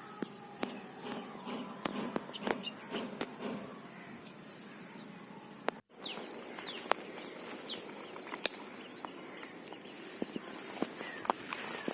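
Open-air ambience: a steady high-pitched insect buzz, with a few short bird chirps and scattered light clicks. The sound drops out for a moment about six seconds in.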